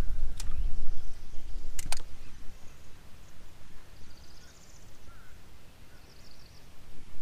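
Outdoor ambience on a lake: an uneven low rumble, a few sharp clicks in the first two seconds, and faint bird trills near the middle and again near the end.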